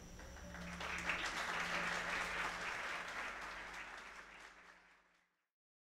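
Audience applauding, swelling about a second in, then fading away and cutting off to silence near the end.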